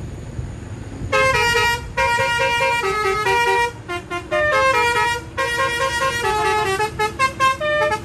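Six-trumpet basuri melodic air horn on a truck playing a tune, starting about a second in: loud horn notes stepping up and down with several sounding together, broken by a few short pauses and turning choppier near the end. A low engine rumble runs underneath.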